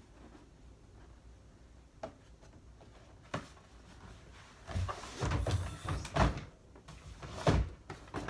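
Two faint clicks, then about three seconds of handling noise: rustling and dull thumps, with two sharp knocks near the end, like things being moved and set down against a cupboard or door.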